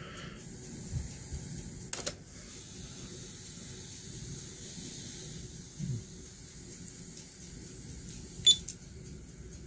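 Steady, faint tape hiss from a cassette playing in a Denon DCR-7600 car cassette deck with no music yet. A few sharp clicks come from its front-panel push buttons being pressed, the loudest near the end.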